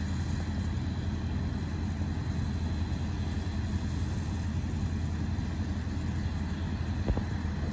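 Diesel engine of a CSX track maintenance machine running steadily, a low hum with no change in pitch, and a single knock near the end.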